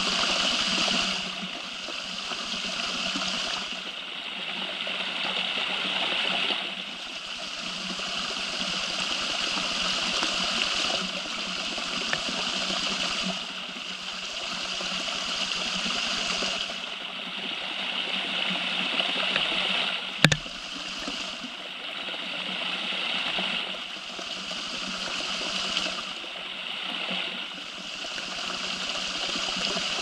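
Water trickling and dripping off rock, a steady splashing and gurgling that swells and eases every few seconds. A single sharp click stands out about two thirds of the way through.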